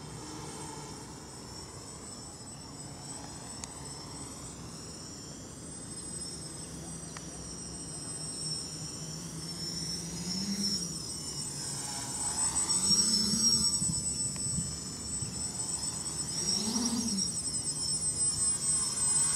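Baby Widow Maker quadcopter's four 1400kv brushless motors and propellers buzzing in flight, growing louder as it comes in close. In the second half the buzz rises in pitch three times with bursts of throttle.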